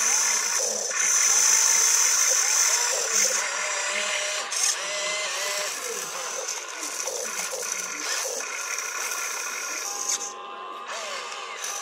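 Small electric motors and gearboxes of a radio-controlled model excavator whining as it digs, lifts and swings its bucket, the pitch rising and falling in short glides as each movement starts and stops.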